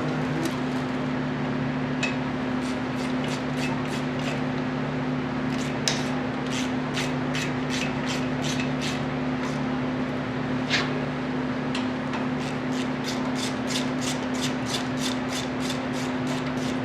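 Hand ratchet clicking in runs of light, even clicks as bolts are run in, speeding to about three clicks a second near the end, with a few single metal knocks, over a steady low hum.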